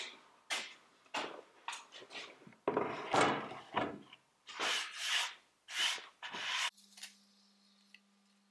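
Plywood panel handled on a wooden workbench: a run of irregular rubbing, scraping and knocking as it is laid down and slid into position, loudest a little under halfway through. About seven seconds in the handling stops abruptly and only a faint steady hum remains.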